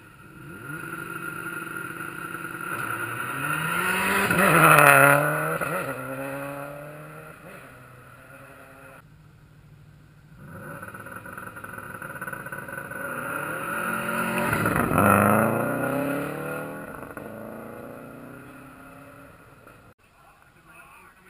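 Two rally cars pass at speed on a gravel stage, about ten seconds apart. Each engine grows louder and higher as it approaches, then drops in pitch as it goes past and fades. The sound cuts out briefly between the two passes.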